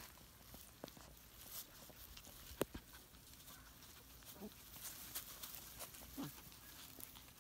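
Havanese puppies play-fighting in grass: two brief, faint puppy cries, one wavering about halfway through and one falling in pitch near the end, over quiet rustling and a few sharp clicks.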